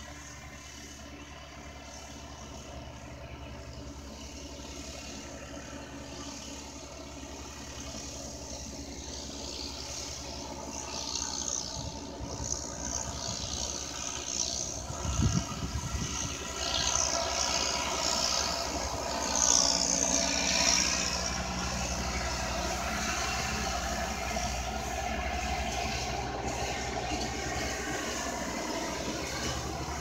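Diesel farm tractors running at work, one pulling a hay rake and one pulling a round baler, the engine sound steady and growing louder from about halfway through as the baler rig comes closer. A low thump sounds near the middle.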